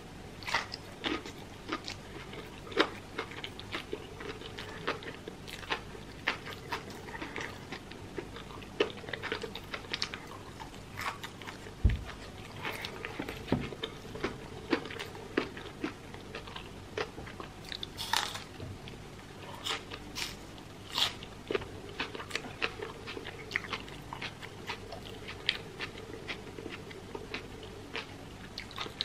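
Close-miked chewing and crunching of crispy fried chicken and French fries, a run of short, sharp crunches with wet mouth sounds between them. A single low thump comes about twelve seconds in.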